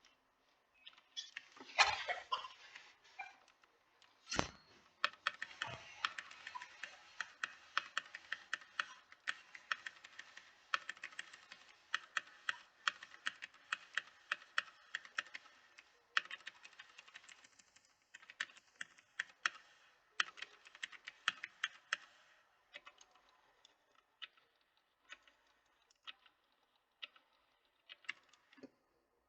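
Typing on a mechanical keyboard: a dense, fast run of key clicks that thins to scattered single presses after about twenty seconds, with two louder knocks in the first few seconds.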